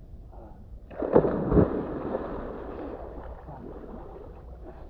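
Lake water splashing as a person jumps in: a sudden heavy splash about a second in, then churning water that fades over the next couple of seconds.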